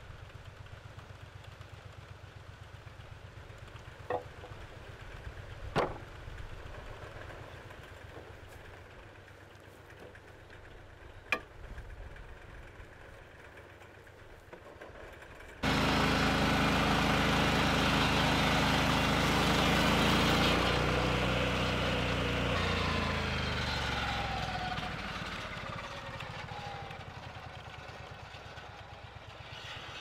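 Lucas swing-blade sawmill's engine running at a low idle, with three sharp knocks of sawn boards being stacked. About halfway through, the sound jumps to the mill running hard as its circular blade saws along a log; then the engine note falls in pitch and fades.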